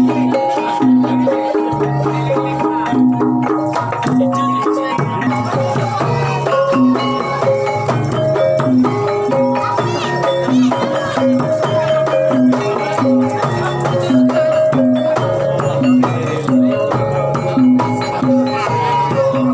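Javanese gamelan music accompanying a jaranan horse dance: a repeating pattern of pitched metal gong-chime and metallophone notes over drum strokes, playing steadily.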